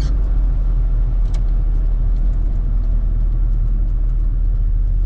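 Volkswagen Transporter T3's 1.6-litre diesel engine and road noise heard inside the cab while driving: a steady low drone.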